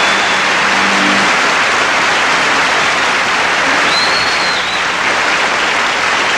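A concert audience applauding loudly and steadily. The band's last held chord dies away in the first second or so, and a single shrill whistle rises from the crowd about four seconds in.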